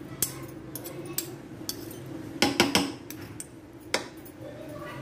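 Metal fork and spoon clinking and scraping against a ceramic bowl while stirring a thick vegetable and flour batter, with scattered clicks and a louder cluster of clinks about two and a half seconds in. A steady low hum runs underneath.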